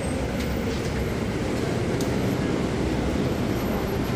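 Caterpillar C13 ACERT inline-six diesel of a NABI 40-foot transit bus running, heard from the rear seat inside the cabin: a steady low rumble.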